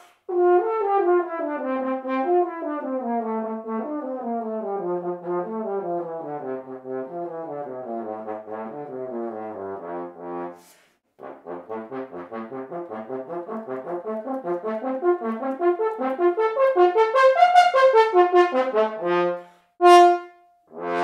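French horn playing a fast étude, Allegro vivace, in quick runs of short notes. The first half falls steadily in pitch. After a short breath pause about halfway, the notes climb and grow louder near the end, with a few separate short notes to close.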